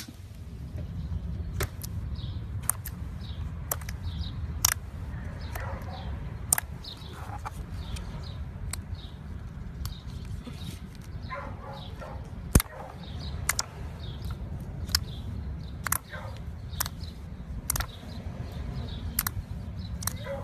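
Clear slime being squeezed and poked, giving sharp pops about once a second with small squelches between them, over a steady low rumble.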